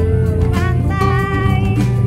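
Background music: a song with a held, wavering vocal melody over a steady low bass.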